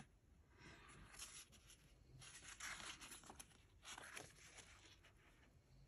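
Near silence with faint rustling of paper sticker sheets being handled and shuffled, a few soft brushes of noise in the first four and a half seconds.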